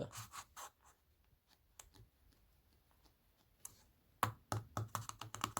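Light clicks and knocks from hands handling a loudspeaker: a few at the start, a quiet gap, then a quicker run of clicks from about four seconds in.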